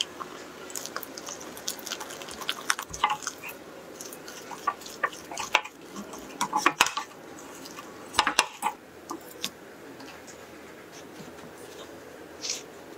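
Silicone spatula stirring and scraping a thick choux dough (flour beaten into boiled butter and water) in an enamel pot, with irregular knocks and clatter against the pot, thickest in short clusters around the middle. A single brief tap comes near the end.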